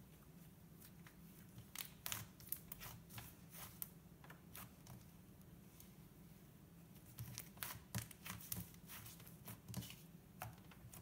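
Faint, irregular sticky clicks and crackles from hands stretching and pressing a cloud cream slime.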